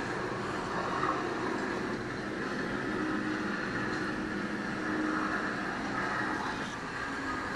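Steady rushing noise of a thunderstorm, even and unbroken throughout, with no distinct thunderclap.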